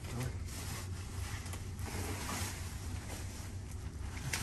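Plastic packing wrap and a cardboard box rustling and crinkling as hands dig through the packing, with a sharper crackle near the end, over a low steady hum.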